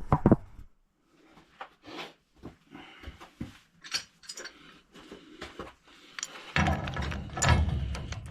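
Scattered clicks and clinks of pipe fittings and a wrench being handled while a fitting is taken off. About six and a half seconds in a louder, steady low noise with rapid clicking starts and runs on.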